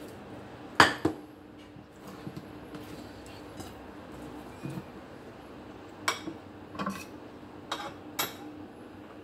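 A few sharp knocks and clinks of a plate and kitchen scissors being picked up and set down around a wooden cutting board, the loudest a pair about a second in and more spread over the last three seconds, over a faint steady hum.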